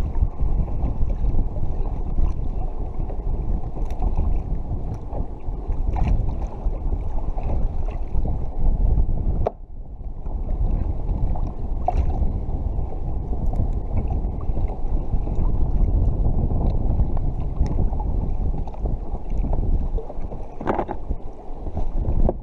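Steady wind rumble buffeting the microphone over choppy sea water, dipping briefly about halfway.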